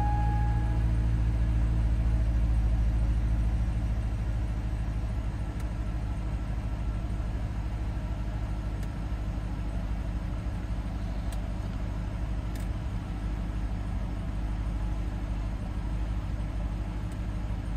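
2005 Chevrolet Corvette's 6.0-litre LS2 V8 idling just after a cold start, heard from inside the cabin. It runs at a raised cold fast idle for the first few seconds, then settles to a lower, steady idle.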